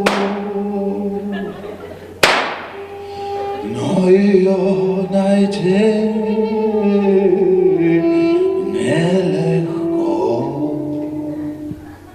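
Slow singing with long held notes that slide between pitches, sounding unaccompanied. Two sharp knocks cut through it, one at the start and one about two seconds in.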